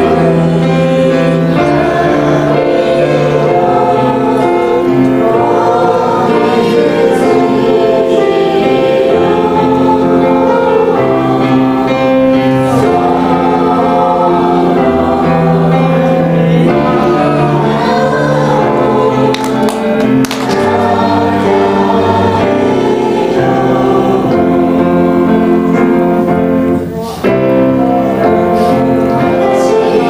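Many voices singing a Japanese Christian worship song together, over an accompaniment that holds steady low notes.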